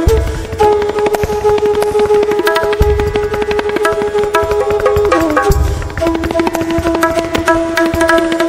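Indian-style instrumental background music: tabla strokes under a melody of long held notes that step down in pitch, with a deep low drum hit about every three seconds.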